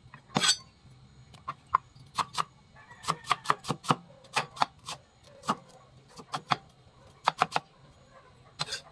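Cleaver slicing red onion on a thick wooden chopping board: about twenty sharp knocks of the blade on the board at an uneven pace, with a quick run of about five a second in the middle.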